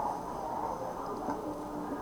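Steady low hiss of background noise with no distinct event.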